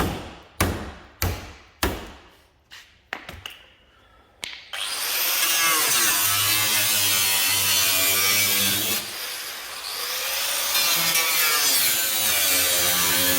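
A few hard knocks about every 0.6 s, each ringing briefly, then smaller taps. About five seconds in, a power cutting tool starts and runs loudly, cutting the car bonnet's metal around the lock, its pitch wavering under load and easing off briefly midway.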